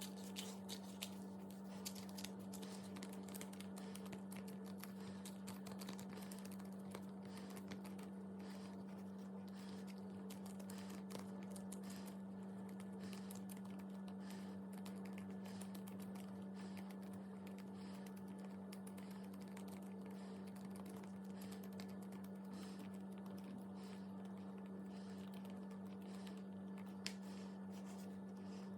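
Slime being worked by hand, with many small irregular clicks and crackles over a steady low hum.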